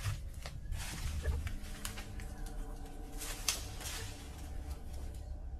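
Footsteps crunching through thick dry fallen leaves and twigs, an uneven run of rustling crunches.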